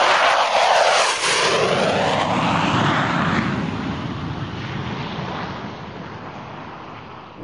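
Aircraft flyby roar, loudest in the first second or two as it sweeps past, then fading slowly away.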